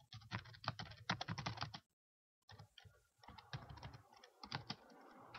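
Typing on a computer keyboard: a run of quick key clicks, broken by a moment of dead silence about two seconds in, then more keystrokes.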